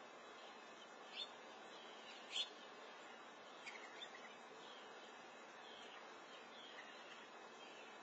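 Faint steady hiss with a few short, high bird chirps, the loudest about two and a half seconds in and a small cluster around four seconds.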